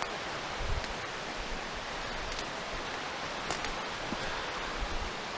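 Steady rush of flowing creek water, an even hiss without a pitch. A few faint clicks and knocks come through it.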